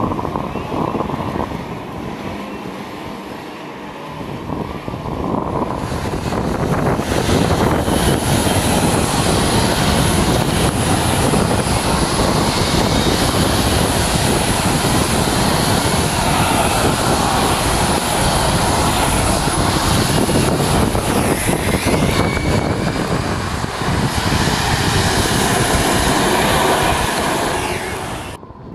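Racing karts running past on a rain-soaked track: a loud, steady wash of motor noise and wet-tyre spray. It builds about six seconds in and cuts off suddenly near the end.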